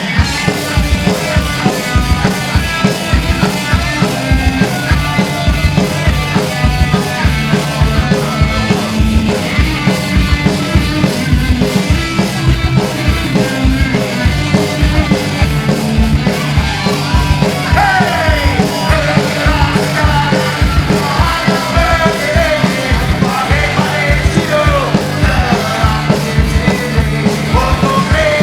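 Punk rock band playing live: fast, driving drums, distorted electric guitars and bass, with shouted vocals.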